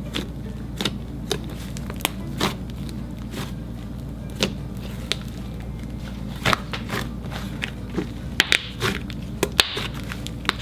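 Stiff slime with foam soap worked into it being squeezed and pulled by hand: irregular sharp clicks and pops, more of them near the end, over a steady low hum.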